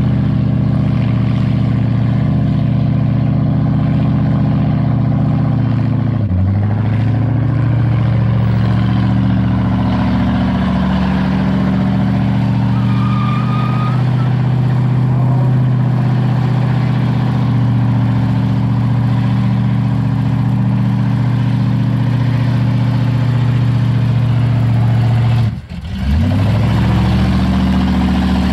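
Holden VL Commodore V8 held at high revs through a burnout, its exhaust note loud and steady. The revs sag and climb back about six seconds in, and near the end they drop sharply for a moment before coming straight back up.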